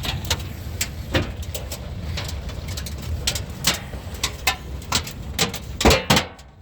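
Hailstones striking a car's body and glass, heard from inside the car as irregular sharp knocks a few times a second over a steady low rumble. Two heavier hits near the end are the loudest.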